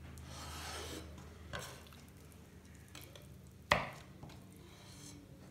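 Kitchen knife slicing soft roasted red peppers on a bamboo cutting board: quiet slicing and rustling, with one sharp knock of the blade on the board about three and a half seconds in.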